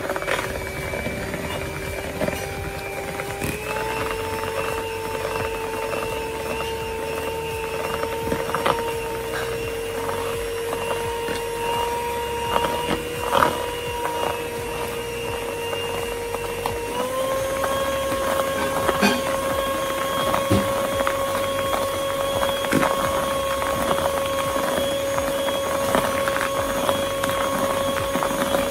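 Electric hand mixer whirring as its beaters whip egg whites in a plastic bowl while sugar is added, with light ticks of the beaters against the bowl. The motor's whine steps up in pitch twice, about three seconds in and again a little past halfway.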